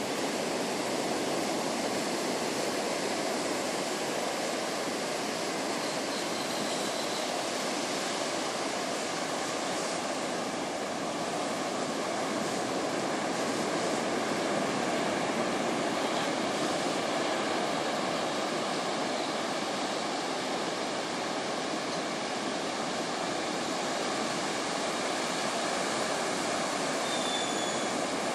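Surf washing in on a sandy beach: a steady, continuous rush of small breaking waves, with a faint short high chirp twice.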